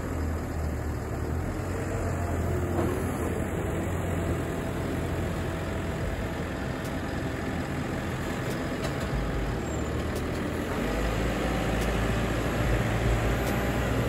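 Diesel engines of JCB telehandlers running as the machines drive about, a steady engine drone that grows a little louder near the end.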